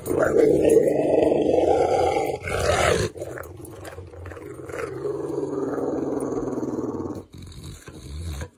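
Large black-and-tan dog growling in long low rumbles while mouthing a hand. The growl is loudest for the first few seconds, then goes on more softly and stops near the end.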